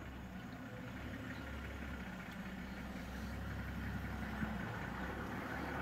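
Safari vehicle engine idling, a steady low rumble that grows gradually louder.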